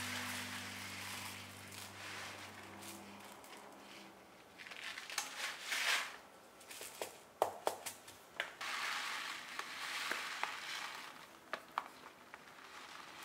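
Dry Riceberry rice grains pouring from a plastic bag into a plastic storage container, in two spells of rushing hiss, with the bag crinkling and grains ticking against the container between them. Background music fades out in the first few seconds.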